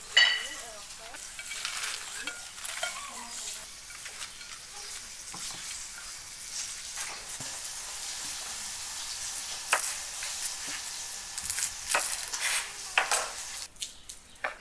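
Food sizzling in hot oil in a pan, with a utensil stirring and knocking against the pan a few times near the end.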